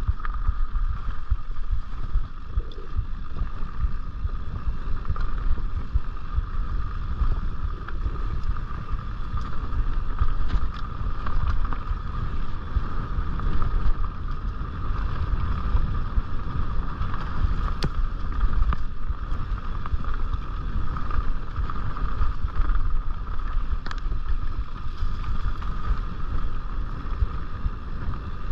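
Mountain bike rolling along dirt singletrack: rumbling tyre and wind noise on the microphone, with a steady high hum and a few faint clicks and rattles from the bike.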